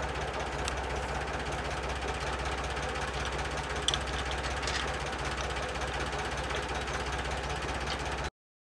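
Tractor engine idling steadily, with a few light clinks of bolts being fitted to the hay rake's pulley bracket, the sharpest about four seconds in. The sound cuts off suddenly near the end.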